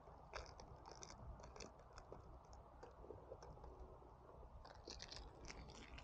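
Faint crinkling and clicking of a plastic dessert cup and its wrapping being handled and opened, in two short clusters, near the start and about five seconds in.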